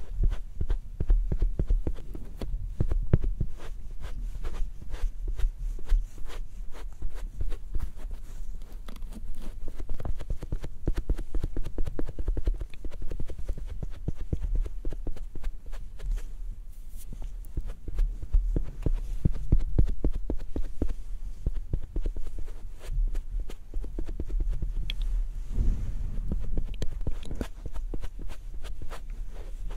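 Makeup sponge dabbed rapidly against the skin close to the microphone, giving a stream of soft, muffled taps with deep thuds. The tapping eases briefly around the middle.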